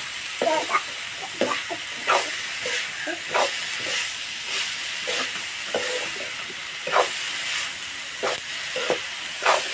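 Metal spatula scraping and stirring a neem-flower and onion stir-fry in a kadhai, in short irregular strokes over a steady sizzle of frying.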